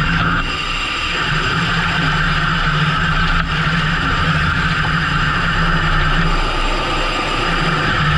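Fishing boat's engine running steadily at a constant speed, with a low hum and a rushing noise over it.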